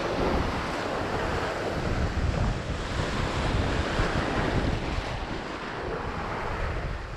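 Sea waves breaking and washing over a rocky shore ledge close by, with wind rumbling on the microphone.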